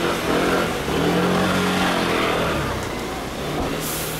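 A motor vehicle's engine running close by amid the din of a crowded market lane, with a short hiss near the end.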